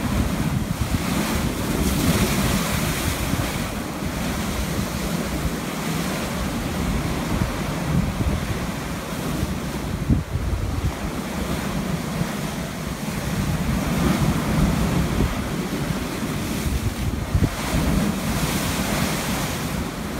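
Heavy high-tide surf breaking and washing up over the bottom steps of a stairway: a continuous rush of churning foam that surges louder with each incoming wave. Wind buffets the microphone throughout.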